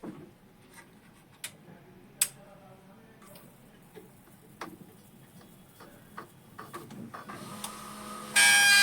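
HP LaserJet M1005 printer powering up and initialising, with scattered mechanical clicks and ticks. About eight seconds in, a loud steady whine with many tones starts suddenly: the scanner motor's noise, which is the fault sound the printer is being repaired for.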